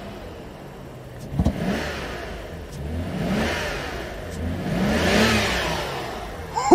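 BMW 750iL's 5.0-litre M70 V12 engine revved three times, each rev rising and falling in pitch. The engine now revs freely, no longer held in limp mode.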